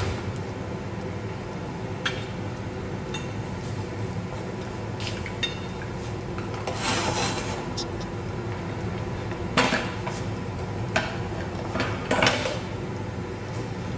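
Scattered clicks and knocks of a plastic hand-crank spiralizer and a metal bowl being handled while a fresh carrot is fitted onto the spiralizer, over a steady background hum.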